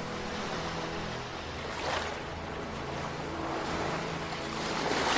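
Ocean waves washing in, with one swell about two seconds in and a louder one building near the end, over low sustained tones.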